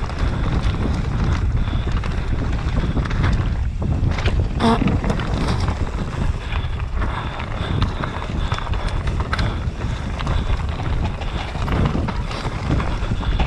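Wind rushing over an action camera's microphone and tyres rumbling on a dirt trail as a mountain bike rides fast downhill, with a few sharp knocks and rattles from the bike over the rough ground, most of them a few seconds in.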